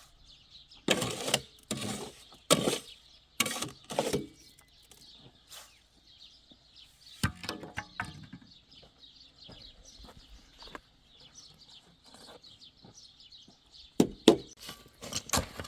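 Short knocks and scrapes of manual work: several in the first few seconds, a couple of sharp clicks midway and a quick cluster near the end. They sound over a steady high chirping in the background.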